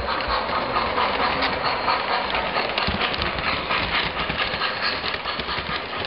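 O-gauge model passenger train running close by on three-rail track: a steady rolling rumble of the wheels with many small clicks.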